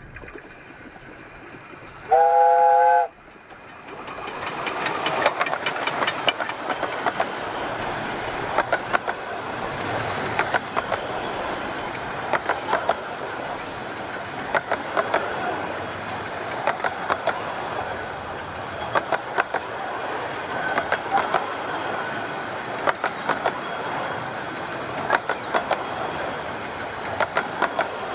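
Romney, Hythe & Dymchurch Railway 15-inch-gauge steam train: its whistle blows once for about a second, several notes at once. Then the locomotive and carriages run past close by, the wheels clicking over the rail joints in quick groups.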